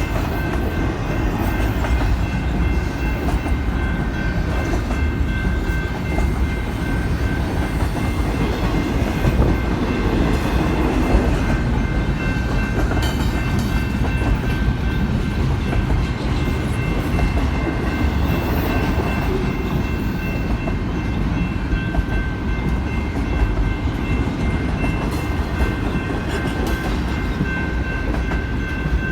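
Double-stack intermodal freight cars rolling past: a steady, heavy rumble of steel wheels on rail, with a thin, steady high ring over it.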